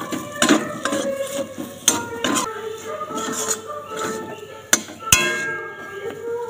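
Metal spatula scraping and knocking against a metal kadai while stirring a mashed potato and paneer filling: irregular scrapes and clinks, the sharpest a little under five seconds in.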